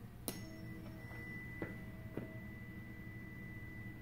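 A 320 Hz tuning fork is struck about a third of a second in and then rings faintly and steadily, with a clear high overtone above its low note. Two faint knocks follow in the middle. The fork is held over the open end of a PVC pipe standing in water to find the air column's resonance.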